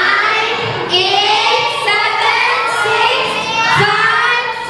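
Children singing together, several high voices holding and sliding between notes.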